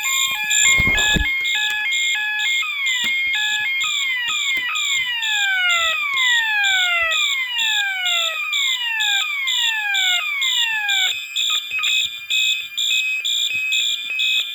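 Several electronic fire alarm sounders going off together, really loud: a rapidly pulsing high beep throughout and a two-tone stepping pattern in the first few seconds. From about three seconds in, repeated overlapping falling sweep tones join until about eleven seconds in.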